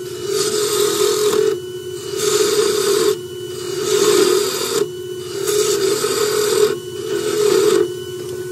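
Wood lathe turning an oak blank. The lathe's motor hums steadily under the hiss of a turning tool cutting the spinning wood in about five passes of a second or so each, the last ending near the end.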